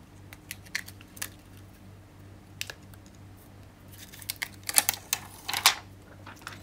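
Protective plastic film being peeled off the back of a replacement iPhone 7 Plus display: a few scattered clicks, then a burst of crackling as the film comes away, loudest about five seconds in.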